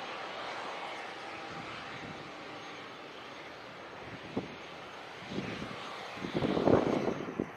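Jet aircraft engines running with a steady whooshing drone. About halfway through comes one sharp knock, then a louder, irregular rumbling near the end.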